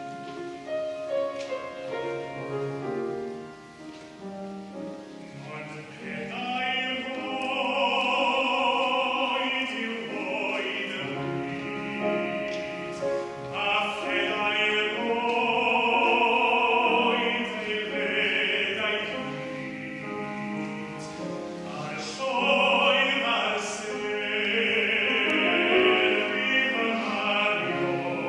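A solo tenor singing a slow song in classical operatic style with piano accompaniment. The piano plays alone at first, and the voice, with a wide vibrato, comes in about six seconds in. The sound carries the long echo of a cathedral.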